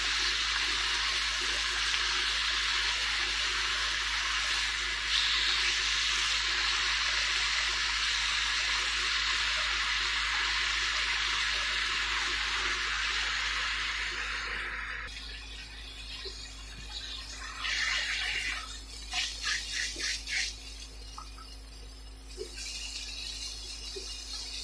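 Thin slices of marinated pork belly sizzling in a nonstick frying pan, a steady hiss that stops abruptly about fifteen seconds in. After it come scattered scrapes and taps of a utensil against the pan.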